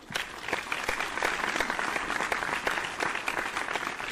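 Applause track of a large audience clapping steadily, fading in just as it starts.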